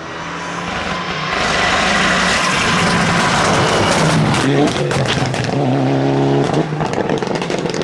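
Classic rally car approaching at full throttle, growing louder over the first couple of seconds, then passing close with its engine note changing. Sharp crackles follow near the end.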